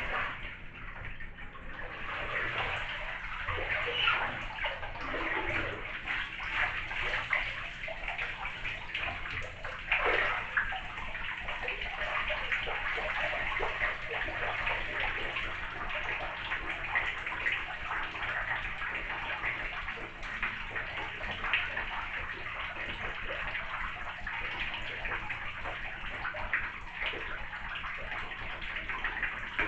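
Water running steadily into a part-filled bathtub, a continuous rushing hiss. Some louder splashes sound in the first ten seconds or so, as a person in the tub moves through the water.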